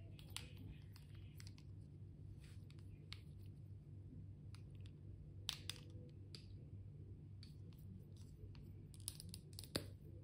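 Faint clicks and taps of small plastic bottle-shaped highlighter pens being handled, with a few sharper clicks around the middle and near the end, over a low steady hum.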